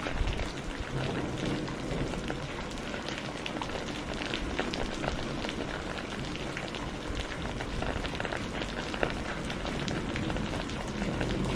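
Steady rain falling, an even hiss dotted with many individual drops ticking on a surface.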